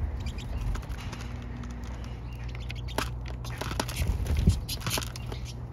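A feeding flock of pine siskins giving short, high twittering calls and clicks, busier in the second half, over a steady low rumble, with one louder thump about three-quarters of the way through.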